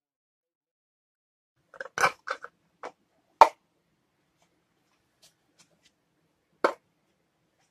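A handful of short, sharp plastic knocks and clacks from white PVC pipe and fittings being handled and set against a workbench. They start about two seconds in, the loudest comes about a second later, and a last one comes near the end.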